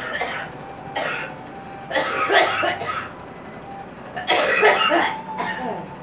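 A young woman coughing: two short coughs about a second apart, then a longer run of several coughs, and after a pause another long run followed by one last short cough near the end.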